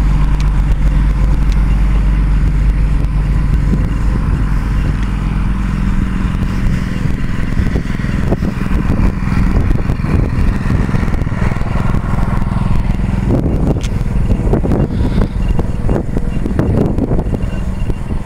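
An engine running steadily at a constant speed. Sharp clicks and crackles cluster over the last few seconds.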